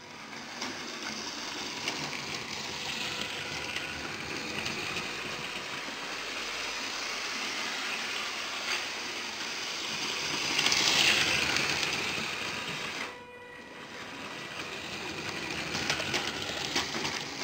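Lego 9V train running on plastic track: a steady electric motor whir with wheel rattle. It grows louder about two-thirds of the way through as a train passes close, then drops suddenly and builds again.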